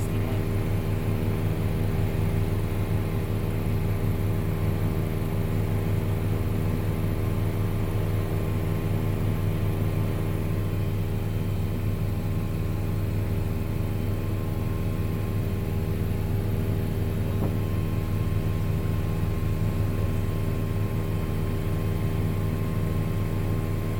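Helicopter in flight: the steady drone of its engine and rotor, an even low hum with several steady tones above it.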